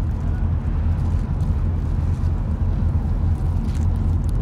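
Whale-watching boat's engine running with a steady low rumble.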